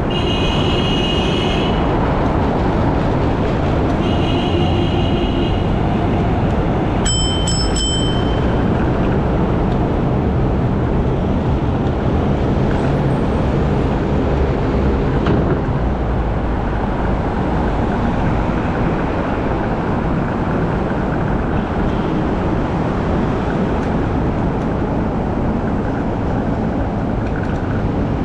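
Steady traffic and road noise while riding an electric scooter along a busy city road. A few high tones sound in the first six seconds, and a short, sharp high beep comes about seven seconds in.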